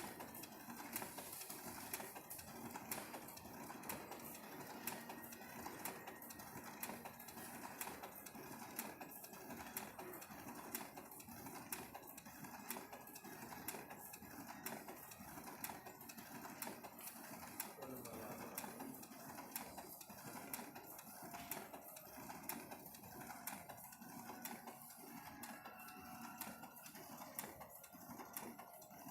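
A machine running steadily with a regular, rapid clicking clatter.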